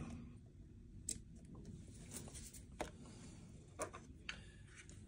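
Quiet room tone with a few light, separate clicks and taps from small parts being handled on a workbench.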